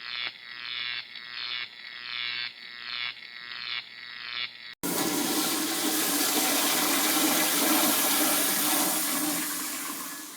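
A rhythmic pulsing sound, about one and a half pulses a second. About five seconds in it is cut off suddenly by a loud, steady rush of water that runs about six seconds and then stops.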